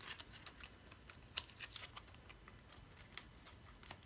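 Faint, scattered light clicks and taps of small objects being handled, with two slightly louder clicks about a second and a half in and near the end.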